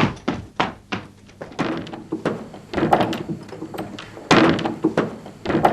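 Repeated thuds and knocks: a heavy machine being carried bumps again and again against a closed door, with the loudest knocks at the start and about four and a half seconds in.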